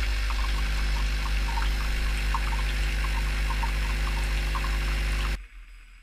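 Philips Senseo pod coffee machine running an empty hot-water flush into a mug: its pump makes a loud, steady buzz over faint trickling, then cuts off suddenly about five seconds in as the flush ends.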